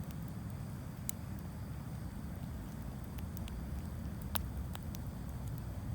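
Wood campfire crackling, with scattered sharp pops and snaps over a steady low rumble.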